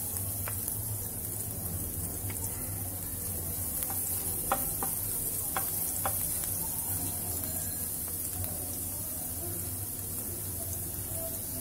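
Chopped garlic and ginger sizzling gently in oil in a nonstick frying pan, stirred with a wooden spatula that gives a few light taps against the pan about halfway through.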